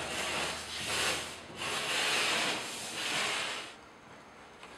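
Plasterboard being cut and trimmed by hand: a series of scraping strokes along the board, roughly one a second, which stop a little before four seconds in.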